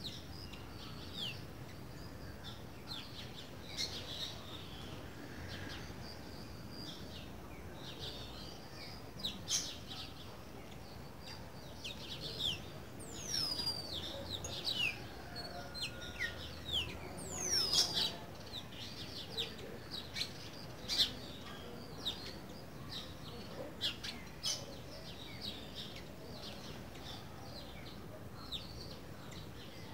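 Green-winged saltator (trinca-ferro) chirping in short notes, with a few quick descending whistles. The calls come most often in the middle stretch.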